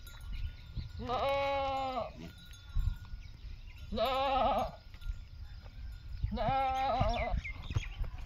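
Goats bleating: three separate calls, each about a second long, with a quavering, wavering pitch.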